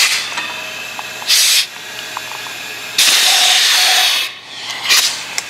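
Compressed air hissing in bursts as the air line is coupled to an adapter in a 5.7-litre Hemi's spark plug hole, pressurizing the cylinder to hold the valve shut. There are four bursts over a weaker steady hiss, the longest a little past the middle.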